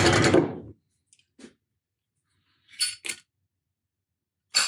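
Old hand tools in a wooden toolbox being handled: a clatter at the start, a couple of faint clicks, then light metal-on-metal clinks with a short ringing tone about three seconds in and again near the end.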